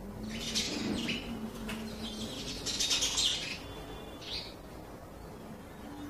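House sparrows chirping in two bursts of rapid high chirps, with one short call about four seconds in.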